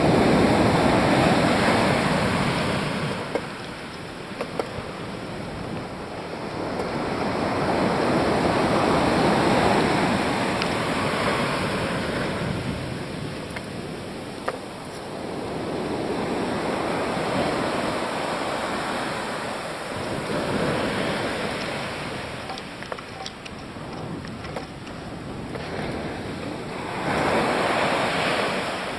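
Ocean surf breaking and washing up a sandy beach, the noise swelling and fading in surges several seconds apart, with a few brief clicks.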